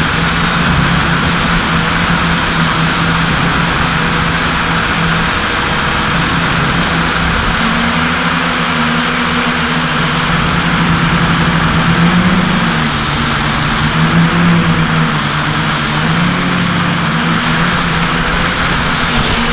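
DFD F183D quadcopter's motors and propellers whirring, heard close up from its onboard camera. The hum stays steady, then wavers up and down in pitch through the second half as the throttle changes.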